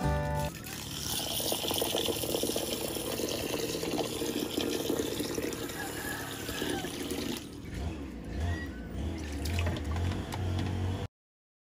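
A stream of water pours and splashes into a glass bowl of dried mung beans to wash them before cooking. The pour eases about seven and a half seconds in to lower sloshing, then cuts off suddenly near the end.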